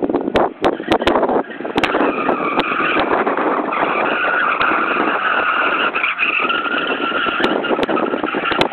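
Ford Sierra's tyres squealing in a long continuous screech as the car drifts in circles, laying down rubber smoke, over the car's engine. Scattered sharp clicks, most of them in the first couple of seconds.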